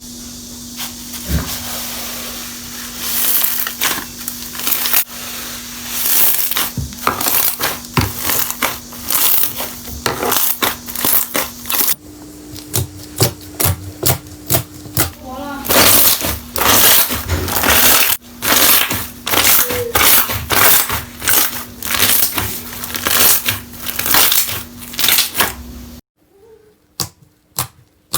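Slime being squeezed, stretched and poked by hand, giving rapid, irregular wet pops and crackling clicks. The texture changes abruptly a few times, and the sound turns much quieter near the end.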